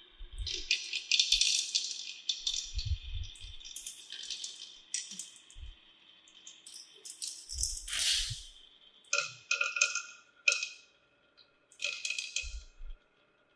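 Marbles clattering and rattling down a toy marble-run track in bursts, with a steady high ringing under the clatter and a couple of whooshes.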